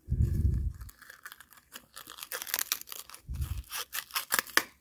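Sheer organza drawstring pouch rustling and crinkling as fingers work it open, with a quick run of crisp crackles in the second half. Two dull handling thumps, one at the start and one about three seconds in.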